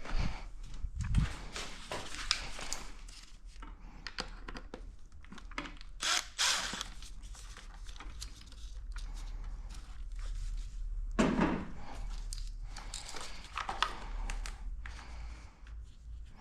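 Irregular knocks, clicks, scrapes and rustling of plastic and metal parts as a motorcycle airbox is worked loose and lifted out by hand. There are heavier thunks right at the start and about eleven seconds in.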